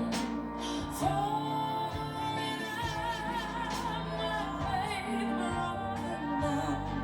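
Slow pop song with a woman's sung, held and wavering vocal line over a soft instrumental backing.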